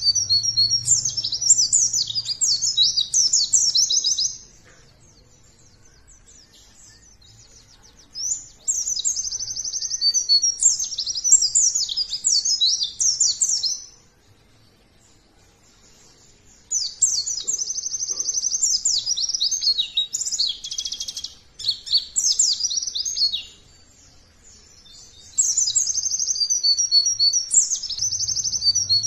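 White-eye (pleci) singing a long, rapid, high-pitched twittering song. It comes in four phrases of about four to six seconds each, with pauses of a few seconds between them.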